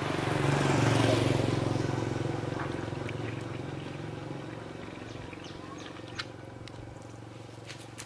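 A washing-machine motor stator on mains power, used as a homemade water pump, buzzing with a steady electrical hum. The hum swells about a second in and then slowly fades.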